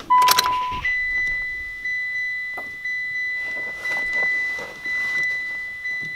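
Mitsubishi Lancer Evolution X's dashboard warning chime ringing about once a second with the ignition just switched on, opening with a sharp click and a short lower beep.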